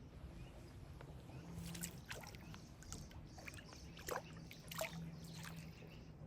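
Faint water lapping and splashing, with a low steady hum underneath and a few short sharp splashes or knocks, the loudest about four and five seconds in.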